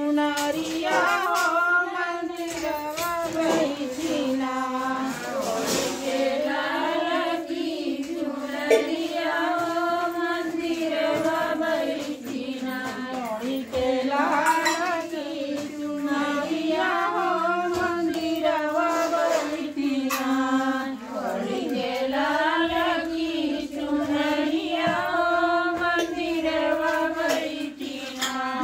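Women singing a Bhojpuri devotional song to Gauri together in a repeating melodic phrase, with a single sharp knock about nine seconds in.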